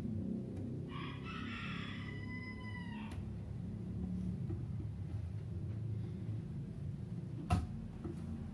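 A rooster crowing once, starting about a second in and lasting about two seconds, its pitch dipping slightly as it ends. A single sharp click comes near the end.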